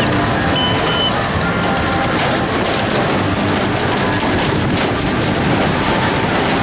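Fairground noise around a running kiddie truck ride: a steady, loud, dense rumble and hiss, with faint snatches of fairground music.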